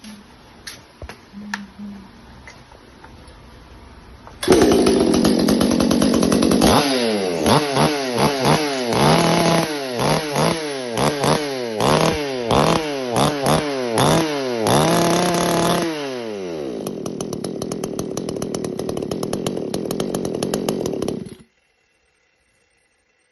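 Proquip PRO599XP two-stroke chainsaw firing up suddenly after a few light clicks. It is revved up and down about a dozen times in quick succession, then runs at a steadier, lower speed before cutting off abruptly.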